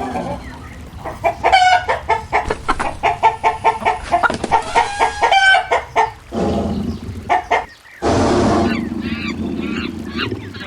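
Chickens clucking in a fast run of short clucks, followed by a longer, rougher stretch of calling about eight seconds in.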